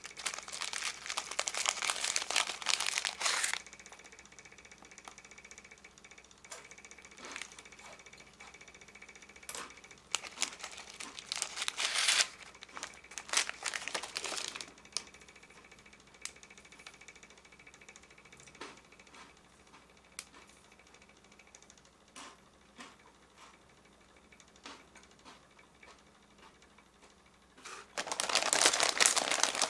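Plastic snack wrappers crinkling as they are handled: a loud rustle at the start, another round of crinkling and tearing in bursts a little before the middle, and a loud crinkle again near the end. In between it is quiet, with scattered small clicks.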